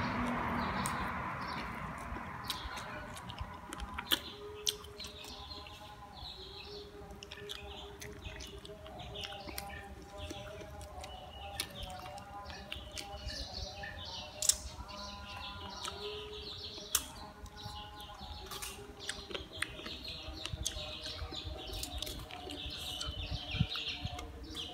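Close-up eating sounds of spicy chicken wings: sucking on fingers, lip smacks and occasional sharp mouth clicks. Birds chirp in the background throughout.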